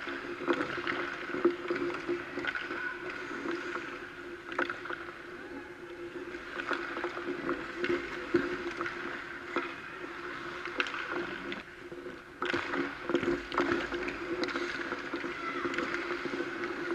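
Ice-rink sounds: skate blades scraping across the ice, with scattered sharp clacks of hockey sticks and pucks over a steady hum. The scraping gets louder about two-thirds of the way through.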